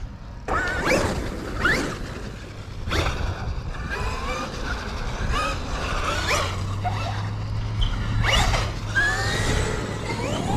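Brushless electric motors of radio-controlled monster trucks, a Traxxas XRT among them, whining in repeated quick rising sweeps as the throttle is punched and let off.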